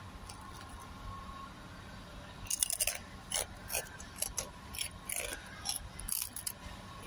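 Krupuk crackers crunching as they are bitten and chewed: a run of irregular crisp crunches starting about two and a half seconds in.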